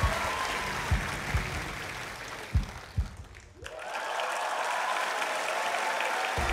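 Performance music with a few heavy beats that ends about three and a half seconds in, followed by a studio audience breaking into applause that builds and holds.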